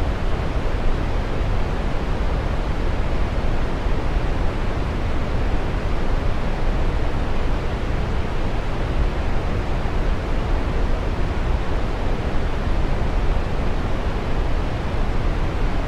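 Steady rushing noise of a waterfall, even and unbroken, with a deep low rumble.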